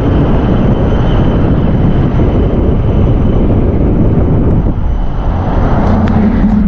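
Loud, steady road, engine and wind noise of a moving Ranger-style pickup truck used as a taxi.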